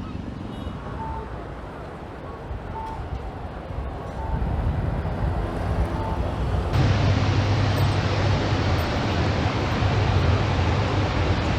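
Outdoor street ambience with traffic and a few short high beeps. Just past halfway it cuts abruptly to a louder, steady rushing noise with a low hum underneath.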